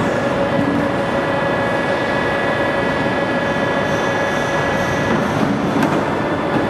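CNC pipe bender running while its bend head swings round to bend 25 mm square tube: a loud, steady mechanical whine, several steady tones over an even noise. One of the higher tones stops about five seconds in.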